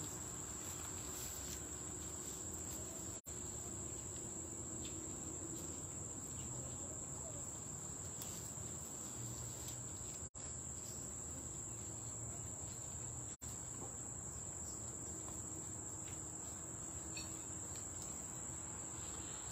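A steady, high-pitched insect chorus drones on without a break over faint low background hum. The whole sound cuts out for an instant a few times.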